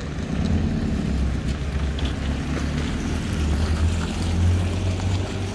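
Mitsubishi Pajero's engine running at low speed as it tows an empty car trailer around to turn: a steady low rumble that swells a little in the middle.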